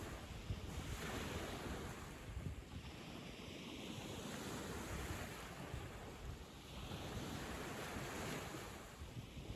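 Sea waves washing up a sandy beach, the surf swelling and falling back in slow surges about every three seconds, over a low rumble of wind on the microphone.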